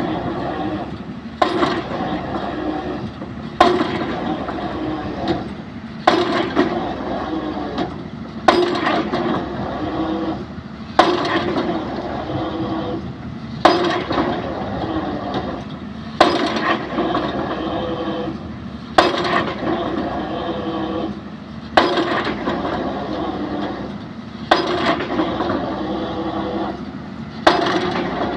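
Excavator drop hammer striking a pile, a heavy blow about every two and a half seconds, eleven in all, with the excavator's engine and hydraulics running steadily between blows.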